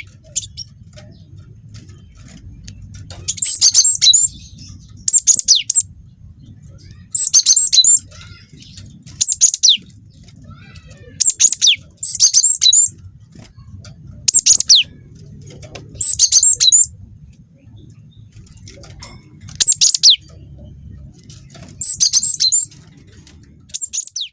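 Cinereous tit (gelatik batu) singing: loud, short phrases of rapid high notes, many sweeping sharply downward, repeated every one to three seconds. A faint low hum sits underneath between phrases.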